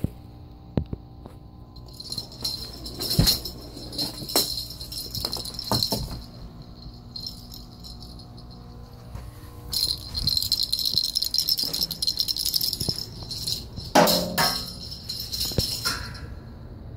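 Small bell jingling in irregular bursts of shaking, with a louder jangling clatter late on.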